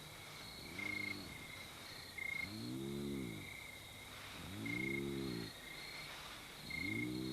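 Spotted hyenas giving low calls, about four of them spaced roughly two seconds apart, each about a second long and rising then falling in pitch. Faint high chirps repeat steadily underneath.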